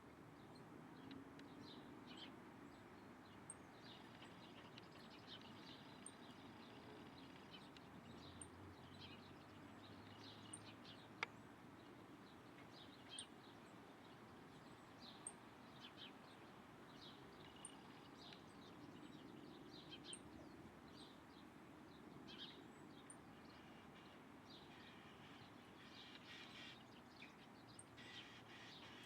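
Faint, scattered bird chirps and short calls, many small notes coming and going, over a quiet background hiss. One sharp click about eleven seconds in.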